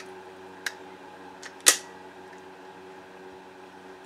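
Two sharp clicks as a Vz.50 pistol slide is handled, the louder about a second and a half in, over a steady background hum.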